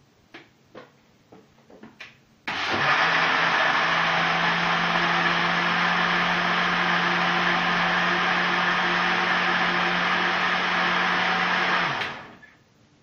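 Electric countertop blender switched on about two and a half seconds in and running steadily with a steady hum for about nine seconds as it blends strawberries and lemon juice, then switched off and spinning down with a falling pitch. A few light clicks of the jug being handled come before it.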